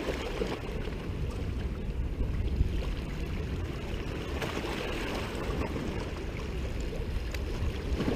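Wind buffeting the microphone, with small sea waves lapping and splashing against the rocks at the water's edge.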